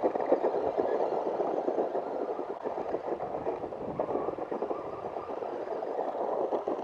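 Radio Shack RC car driving across a gravel driveway: a continuous rough, crackly rattle of its small tyres and motor on the stones.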